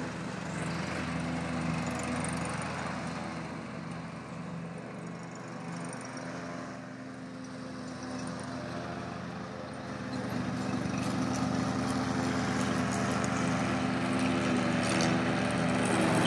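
Riding lawn mower's engine running steadily as it mows, fading a little midway and growing louder as it comes close near the end.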